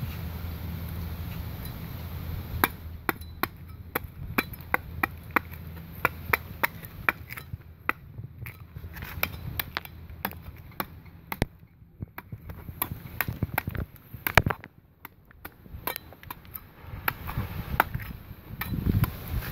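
A meat cleaver chopping into a tree trunk's bark and wood: a run of sharp strikes, about two or three a second with short pauses, starting a few seconds in after a low rumble.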